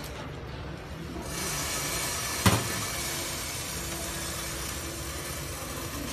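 ABT CS3 optical colour sorter running with a steady hiss that comes up about a second in. A single sharp knock about halfway through.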